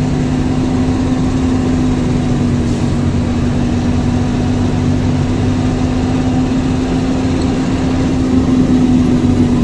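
Scania 113H truck's six-cylinder diesel engine running steadily with road noise, heard from inside the cab while driving. A steady hum throughout; the deeper tones under it fade about halfway through.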